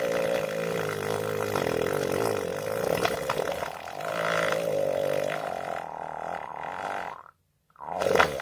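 A long drawn-out fart at a fairly steady pitch, lasting about seven seconds before it stops, then a brief second fart near the end.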